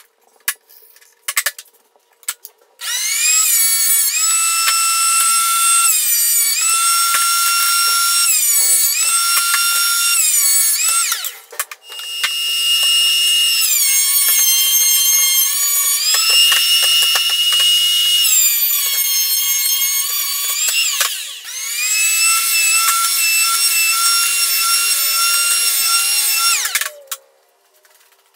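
Porter-Cable benchtop thickness planer running in three long runs. Its whine drops in pitch each time a board feeds through and rises again as the board clears. A few short knocks come before it starts.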